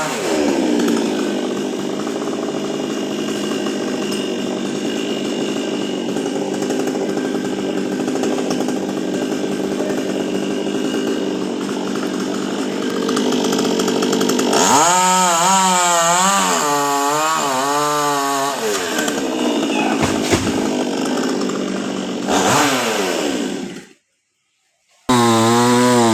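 Chainsaw cutting into a coconut palm trunk, running steadily under load. About two-thirds of the way in its pitch rises and falls several times as the throttle is worked. Near the end the sound cuts out completely for about a second.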